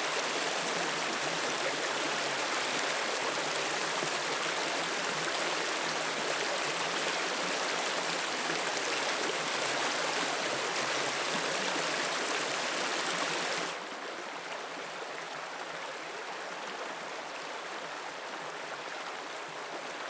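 Small creek running high after heavy rain, its water rushing steadily. About two-thirds of the way through the sound suddenly drops in level and turns duller, then carries on steady.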